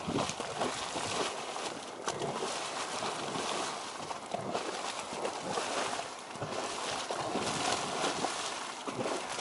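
Geyser erupting: water splashing and spattering in uneven surges that swell and ebb.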